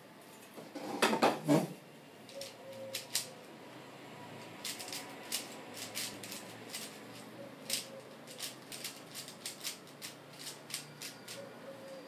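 A 3x3 Rubik's cube being turned fast by hand: a run of quick, sharp plastic clicks from the layer turns, after a louder brief clatter about a second in.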